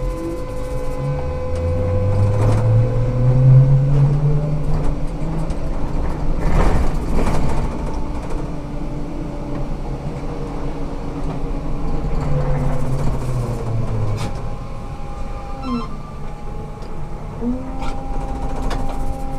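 Ikarus 280T trolleybus running, heard from inside: the electric traction drive's low hum climbs in pitch as it pulls away, over steady humming from its auxiliary equipment. There is a rattling jolt about a third of the way through, then the drive hum rises and falls again, with short gliding whines near the end.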